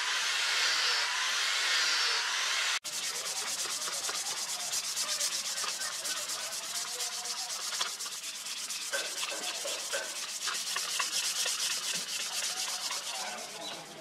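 A handheld angle grinder with a sanding pad running against a wooden knife handle. It whirrs steadily, then after a cut about three seconds in the sound changes to a rapid, rasping scrape of abrasive on wood.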